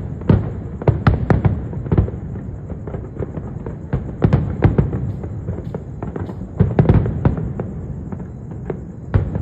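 Fireworks display going off: many sharp bangs, rattling in quick clusters, over a continuous rumble of distant booms.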